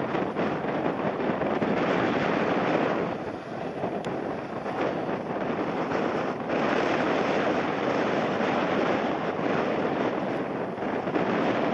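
Jet airliner on approach to land in a strong crosswind, its engine noise mixed with gusty wind buffeting the microphone, swelling and dipping every few seconds.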